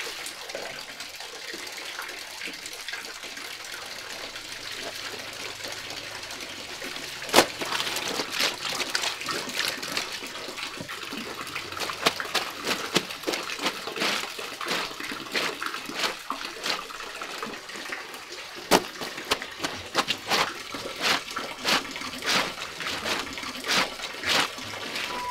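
Clothes being washed by hand at a concrete laundry basin: water runs and splashes steadily at first, then from about seven seconds in the soapy wet cloth is scrubbed and slapped against the washboard in irregular splashy strokes.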